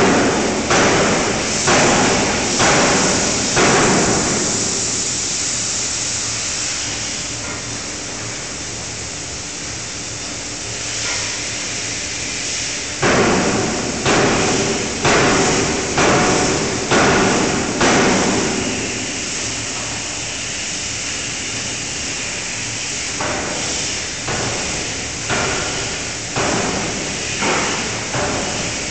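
5-tonne fully hydraulic closed-die forging hammer striking hot metal in the die: three runs of about five to seven heavy blows roughly a second apart, with pauses of several seconds between runs. Each blow is followed by a decaying ring.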